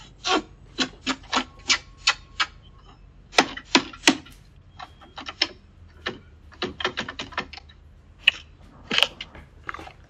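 Door lockset worked by hand: an irregular run of sharp clicks, rattles and short scrapes at the handle and deadbolt as someone tries to get the locked front door open.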